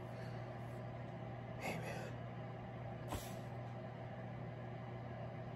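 Steady low hum over a background hiss, with a single sharp click about three seconds in.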